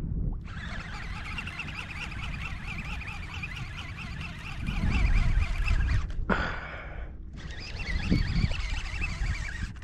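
Fishing reel buzzing as a hooked redfish is fought, breaking off for about a second about six seconds in. Low rumbles of wind and water on the microphone come up twice under it.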